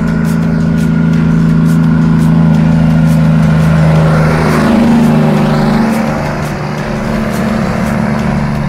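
Diesel tractor-trailer hauling a container, passing close by under load: a steady low engine drone with tyre noise, its pitch dropping a little as it goes past about halfway through.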